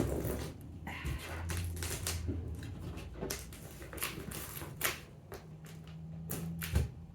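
Irregular scraping, tapping and crinkling of a plastic Lego piece being jabbed and dragged along the packing tape of a cardboard box, working at slitting it open.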